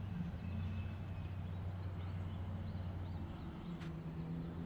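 2025 Ram Rebel's 3.0-litre twin-turbo inline-six idling, a steady low hum heard from inside the cab.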